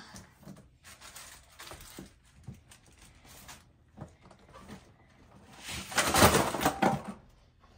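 Things being handled and put into a paper gift bag: light knocks and rustles, then a loud burst of paper rustling about six seconds in.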